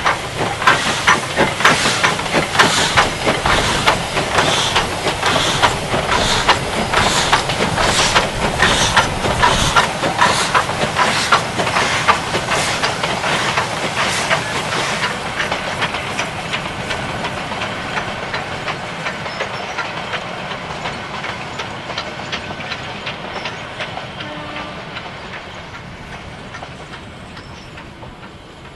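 Steam locomotive working hard as it passes, its exhaust chuffing in a steady, even beat; the sound fades away over the second half as the train recedes.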